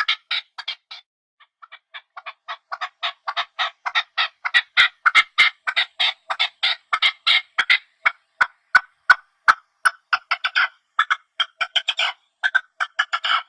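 Partridge giving a fast, chattering series of short repeated calls, about five a second, with a brief pause about a second in before the run resumes.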